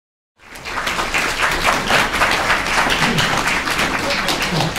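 Audience applauding, many hands clapping densely; it cuts in abruptly less than a second in.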